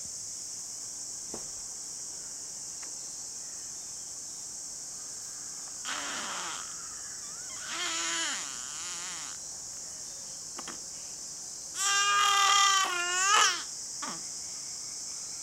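Infant whimpering and crying out in its sleep. A short faint whine comes about six seconds in and a wavering cry near eight seconds. A louder, wavering cry of about a second and a half starts around twelve seconds in.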